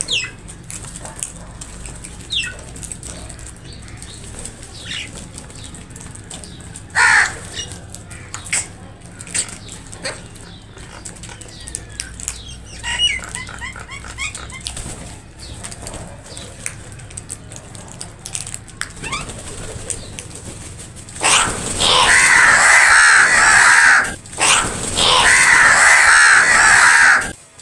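Crows quarrelling over food: scattered short calls and wing flaps, a sharp loud call about seven seconds in, then two long stretches of loud, dense cawing near the end.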